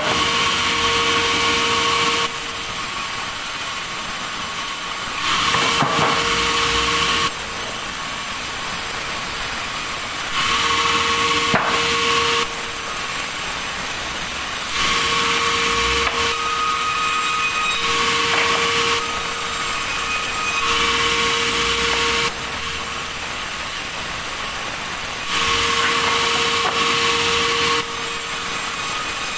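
Sawmill saw running and cutting through a log, a steady high whine and hiss that steps louder and quieter every two to three seconds, with a couple of sharp knocks.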